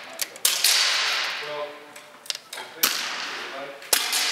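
Pre-charged pneumatic air rifles firing on an indoor range: three sharp cracks, half a second in and about a second apart near the end, each trailing a hiss of echo that fades over a second or so. A few fainter clicks come between them.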